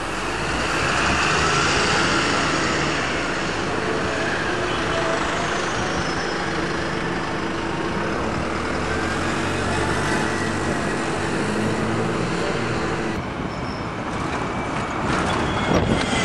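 Single-deck diesel buses driving past close by: engine drone with a whining pitch that rises and falls, over steady city traffic noise. A few sharp clicks near the end.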